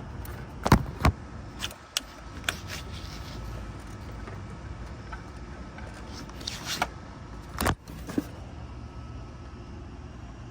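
Car engine running steadily with a low rumble, with several sharp clicks and knocks.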